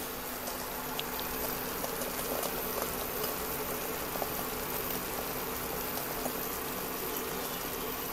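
Egg omelette sizzling and bubbling in a frying pan on an induction cooktop, with small scattered crackles over a steady hum from the cooktop.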